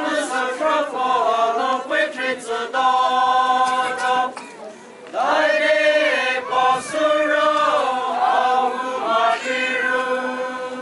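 A mixed group of men and women singing a chant together, in long held notes, with a brief break about four and a half seconds in before the singing resumes.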